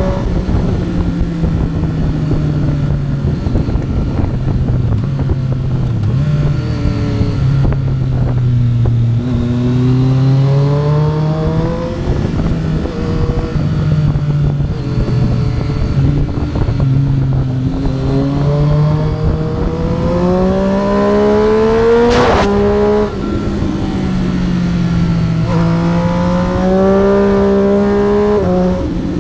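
Triumph Street Triple RS 765 cc three-cylinder engine under acceleration: several long climbs in pitch, each broken off by a sudden drop as a gear is shifted or the throttle closes, the sharpest about three quarters of the way in. A steady rush of noise runs underneath.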